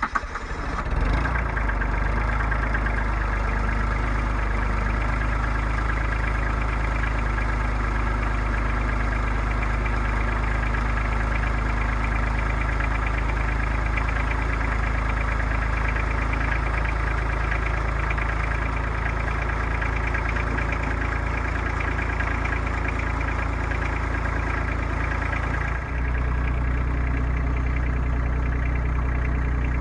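RK25 compact tractor's diesel engine catching on a cold start below freezing, just after the glow plugs have warmed, and settling into a steady idle. Its low rumble grows stronger near the end.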